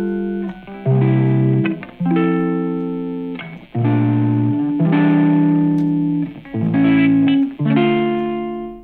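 Background music: slow plucked-string chords, a new one roughly every second, each ringing out and fading.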